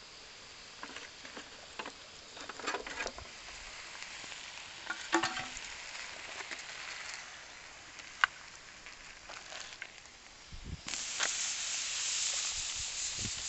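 Metal cookware being handled over a campfire: a mess tin and pot lids knock and clink a few times, one clank ringing briefly about five seconds in. Near the end a louder steady hiss sets in.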